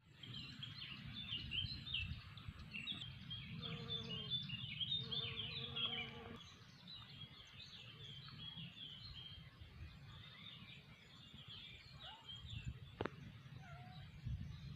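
Several songbirds singing together, many quick overlapping chirps and trills, busiest in the first six seconds, over a low steady rumble. A single sharp click sounds about 13 seconds in.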